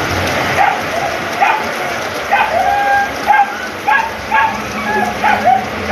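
Steady heavy rain falling, with a dog giving a run of short, high barks about one or two a second over it.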